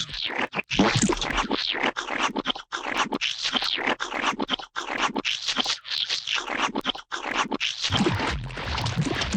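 Gooey, slimy splat sound effects in a rapid run, one short wet squelch after another with brief gaps. Near the end the sounds get deeper and heavier.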